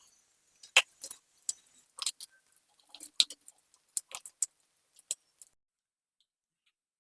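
Kitchen utensils being handled: a dozen or so irregular sharp clicks and light knocks, stopping about five and a half seconds in.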